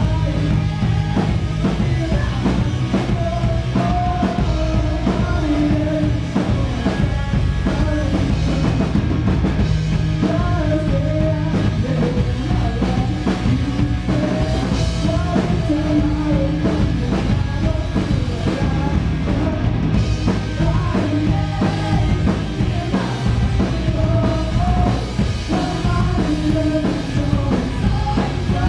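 A live rock band playing loud and steady: electric guitars, bass and a drum kit, with a voice singing over them.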